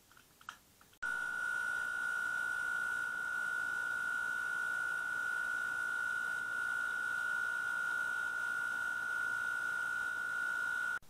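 A steady high-pitched electronic tone over a hiss, starting suddenly about a second in and cutting off just as suddenly near the end.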